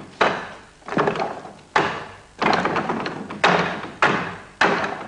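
Wing Chun wooden dummy being struck: forearms and hands knocking hard against its wooden arms, about six quick flurries of clacking knocks, each dying away within half a second.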